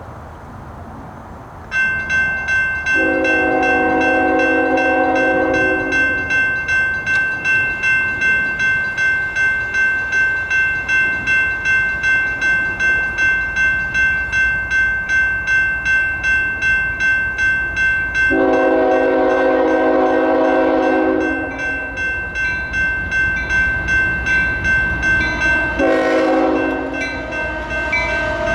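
Electronic grade-crossing bell ringing steadily at about two strokes a second, starting about two seconds in, while an approaching freight train's locomotive horn sounds three blasts, two long and one shorter, its crossing signal; a low rumble builds near the end as the train nears.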